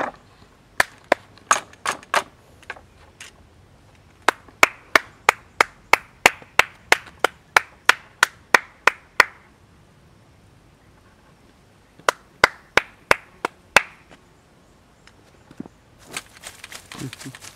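Runs of sharp, evenly spaced clicks, about three a second, in three bursts with pauses between them, followed by a brief rustle near the end.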